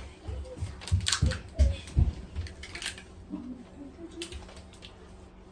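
Crab legs being cracked and snapped open by hand, a run of sharp cracks and dull knocks starting about a second in and lasting about two seconds.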